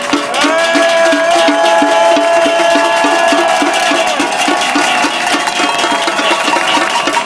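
A crowd clapping and banging metal pots and lids in a fast, steady rhythm, with long held shouts at several pitches rising over it for the first few seconds.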